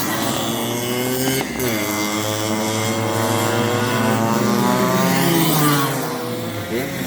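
Go-kart engine under way, its pitch rising and falling with the throttle. It drops at first, breaks briefly about a second and a half in, climbs steadily for about four seconds, then falls off and starts to rise again near the end.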